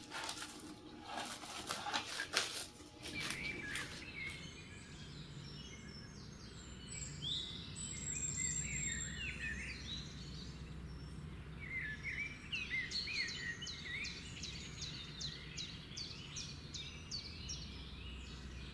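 Plastic cling film crackling as it is handled over a marinated fish for about the first three seconds. Then small birds chirp repeatedly over steady outdoor background noise.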